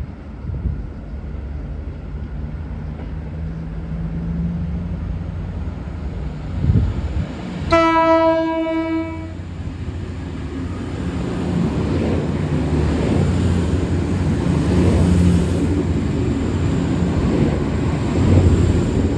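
V/Line VLocity diesel multiple units approaching and passing on standard-gauge track. About eight seconds in comes one low-note horn blast lasting about a second and a half. After the horn the engine rumble and running noise grow louder as the train goes by.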